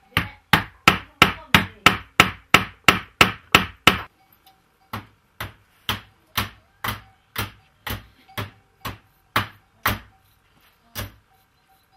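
A hammer striking a hard surface in a steady rhythm, about three blows a second. After a brief pause around four seconds in, the blows go on slower and softer, about two a second, and stop about a second before the end.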